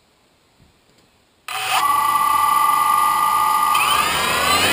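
DJI Phantom quadcopter's electric motors starting suddenly about a second and a half in and spinning with a steady high whine, then rising in pitch near the end as the propellers throttle up for takeoff.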